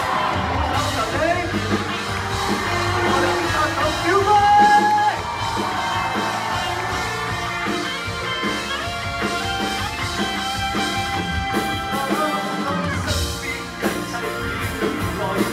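Live rock band playing: electric guitar, bass guitar and drums with a lead vocal, heard from within the audience.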